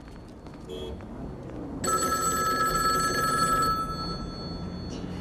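Payphone bell ringing: one fast, trilling ring of about two seconds that begins about two seconds in.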